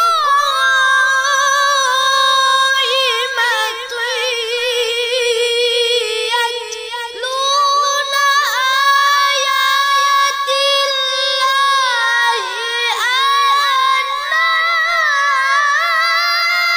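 A boy's voice reciting the Qur'an in melodic tilawah style: long held high notes with quick wavering ornaments, stepping up higher about seven seconds in.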